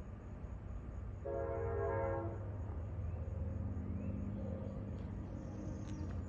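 Distant diesel locomotive horn of a CSX freight train, a chord of several tones: one blast of about a second just over a second in and a fainter one later, over a steady low rumble of the train.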